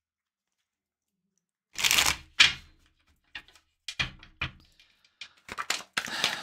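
Tarot cards being shuffled and handled on a table. After a short silence come two brushing swishes, then a run of sharp card snaps and taps that come quicker near the end.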